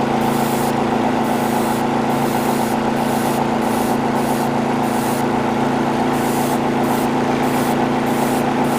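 Airbrush compressor humming steadily, with the hiss of the airbrush spraying paint in light passes that cut in and out every second or so.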